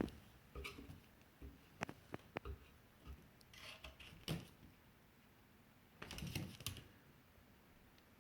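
Faint scattered clicks and taps from a dog and a cat at play, with a longer scuffle about six seconds in.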